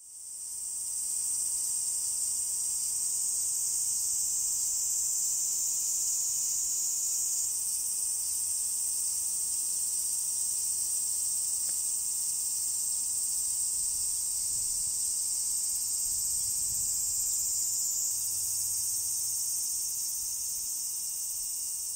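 Steady, high-pitched insect chorus, shifting slightly in level about seven seconds in and again near eighteen seconds.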